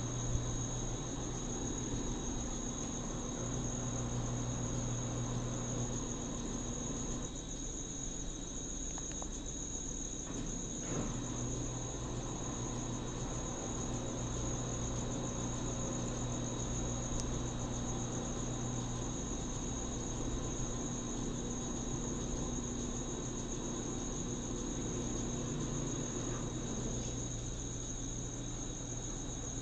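Washing machine running with a low electric hum that switches on and off every few seconds, under a steady high-pitched tone.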